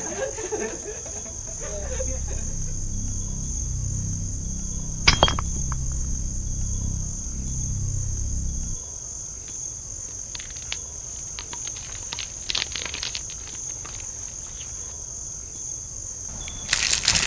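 Crickets chirping steadily. Under them is a low drone that stops about halfway through, one sharp click about five seconds in, a few softer clicks later, and a sudden rush of noise just before the end.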